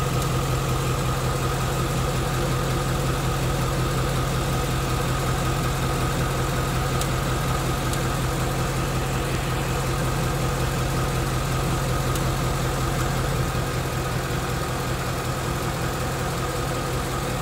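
2016 Ford Mustang GT's second-generation Coyote 5.0 V8 idling steadily on freshly changed oil, with the air conditioning running.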